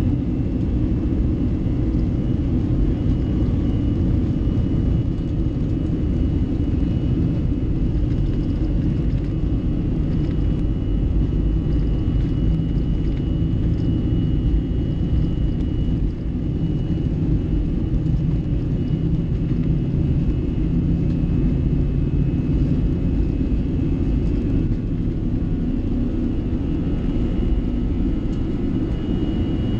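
Airbus A321 engines at takeoff thrust during the takeoff roll, heard from inside the cabin: a loud, steady rumble of engines and wheels on the runway, with a faint high fan whine above it.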